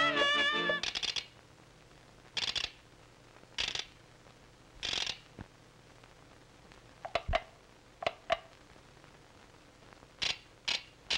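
Cartoon mechanical sound effects for a crank-handled box being worked: a string of short rasping, ratchet-like bursts, each about a second or more apart, with a few sharp clicks and a short tone in the middle. A band tune cuts off just under a second in.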